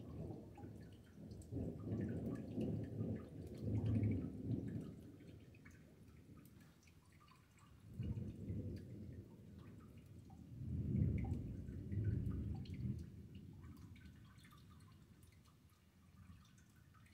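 Thunder rumbling in two long rolling peals, the first over the opening seconds and a second starting about eight seconds in, each swelling and dying away. Light dripping of rain goes on underneath.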